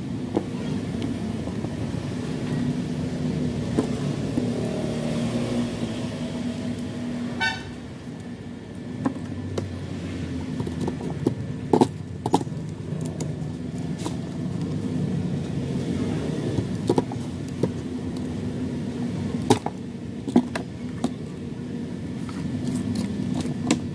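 Scissors cutting wooden ice cream sticks: sharp clicks and snaps, scattered a second or several apart and mostly in the second half, over a steady low rumble.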